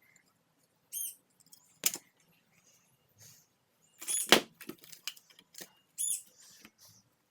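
Plastic parts of a vacuum power nozzle being handled during disassembly: scattered clicks and knocks, the loudest about four seconds in, with two short high squeaks about one and six seconds in.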